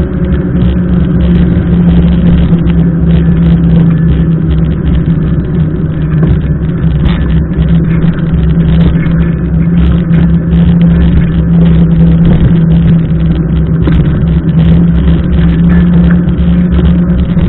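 Steady, loud rumble of wind and wet-road noise on a bike-mounted camera's microphone while a mountain bike is ridden through heavy rain, with rain spattering on the camera.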